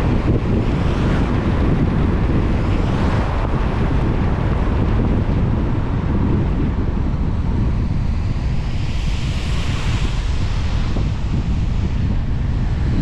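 Road noise from a car driving in the rain: a steady low rumble with the hiss of tyres on the wet road. The hiss swells briefly about nine to ten seconds in.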